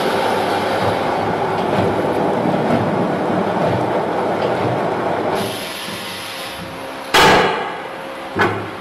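Automatic paper core cutter running, with the paper tube turning on its rollers as it is cut: a loud, rough, even noise over a steady motor hum. The noise drops away about five and a half seconds in, leaving the hum. Then comes a loud sharp knock about seven seconds in and a smaller one near the end.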